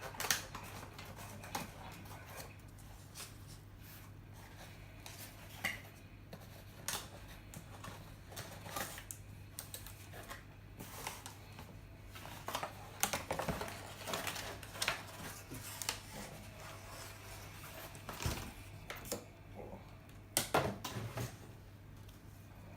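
A package being opened and handled by hand: irregular clicks, taps and rustles of cardboard and wrapping, over a steady low hum.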